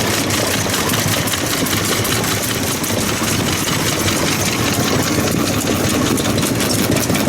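Old stationary farm engines running with a steady, rapid mechanical clatter.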